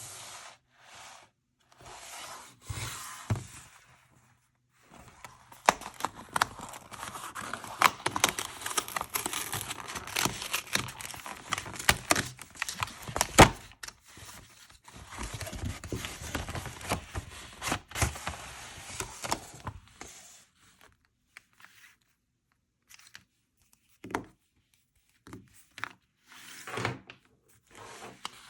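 Toys and packaging being handled: a few short rustles, then a long stretch of rustling and scraping dense with small clicks and knocks, then a few separate taps and knocks.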